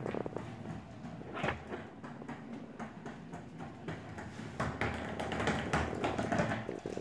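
Skateboard wheels rolling over a hardwood floor under a small puppy, a low rumble with scattered clicks and taps from the board and paws; louder from about four and a half seconds until near the end, where it cuts off suddenly.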